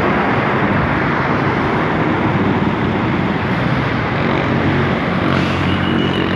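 Loud, steady road traffic noise as motor vehicles pass along the road, with an engine hum coming through more clearly in the second half.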